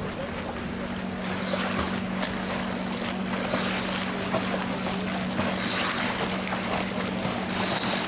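Front-crawl swimmers racing through icy water, their strokes making continuous irregular splashing, with wind on the microphone and a steady low hum underneath.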